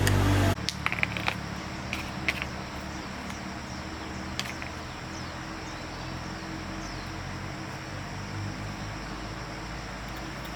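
Small generator engine running loudly, cut off abruptly about half a second in, leaving a steady quieter engine hum with a few light clicks.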